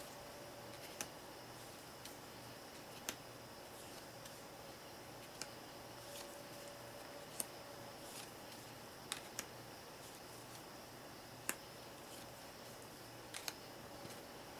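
Jumbo playing cards being handled one at a time, each card giving a short, sharp snap every second or two over a faint steady hiss.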